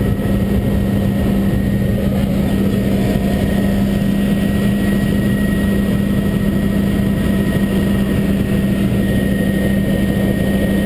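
Helicopter in flight heard from inside its cabin: a loud, steady drone of engine and rotors with a strong low hum and a faint high whine, unchanging throughout.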